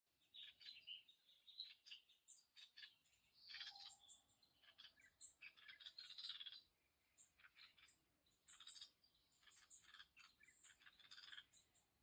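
Small songbirds chirping in trees: runs of short, high chirps, faint, with a sparser stretch about seven seconds in.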